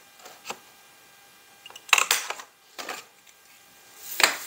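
Handheld corner rounder punch snapping through cardstock as corners are rounded: several short, sharp clicks, the loudest a close pair about two seconds in and one near the end.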